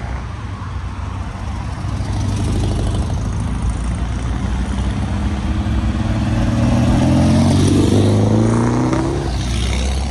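Air-cooled Volkswagen Beetles driving past one after another, the nearer one's flat-four engine loudest about seven to eight seconds in, its pitch rising as it accelerates past.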